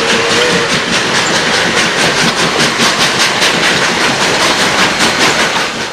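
A train running on rails, its wheels beating a fast, even clickety-clack over the rail joints. A brief steady tone, like a distant horn, sounds in the first half-second.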